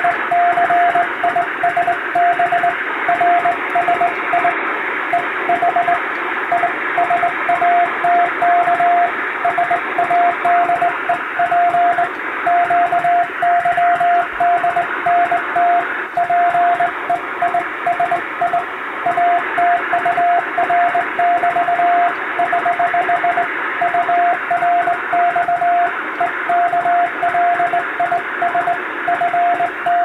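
Hand-keyed Morse code in English letters, sent as five-letter code groups: a single steady beep keyed on and off in dots and dashes from the radio, over a constant hiss of radio noise.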